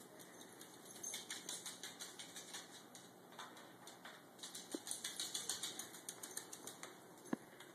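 A dachshund's claws clicking rapidly on a hard floor as she trots back and forth, in two runs of light quick ticks, with one sharp knock near the end.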